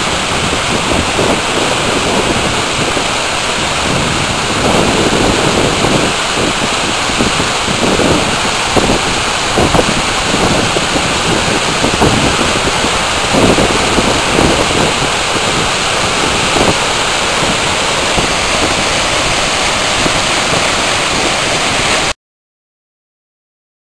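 Loud, steady rush of a flooded creek's whitewater torrent pouring over a waterfall and dam, with irregular deeper surges. It cuts off abruptly to silence near the end.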